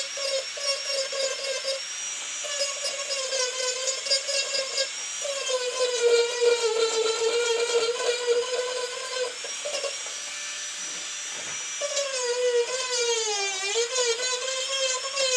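Marathon micro motor handpiece whining as a diamond burr grinds a wood carving, its pitch sagging and recovering as the burr bites in and eases off. The whine drops quieter for a couple of seconds past the middle, then picks up again.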